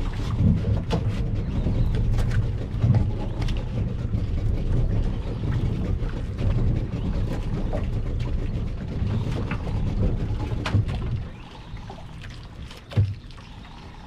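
Outrigger fishing boat's motor rumbling steadily, with scattered light clicks; the rumble drops away about eleven seconds in, and a single sharp knock comes near the end.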